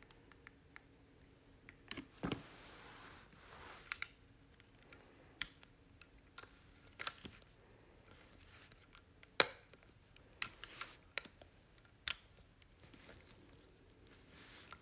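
Irregular metallic clicks and taps from a 1961 Bolex P-1 8mm clockwork movie camera as its side-plate controls are handled, with one sharp, louder click a little over nine seconds in.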